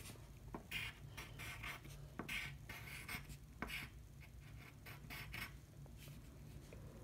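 Faint pencil scratching on paper in short, irregular strokes as a child writes by hand.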